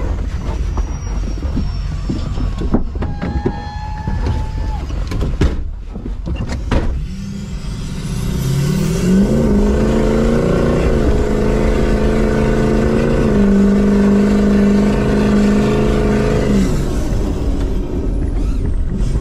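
Mud truck engine revving up hard and held at high revs for several seconds, climbing a little higher partway through, then dropping off. Before it there is mixed outdoor noise with a couple of sharp knocks.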